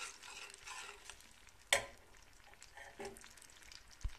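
Butter sizzling as it melts and foams in a stainless steel pot, stirred with a metal spoon. A sharp metallic clink about a second and a half in, and a softer knock near the end.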